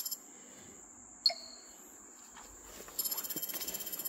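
Insects chirping in a fast, even high-pitched pulse that drops out just after the start and returns about three seconds in. About a second in there is a single sharp click with a brief ringing tone.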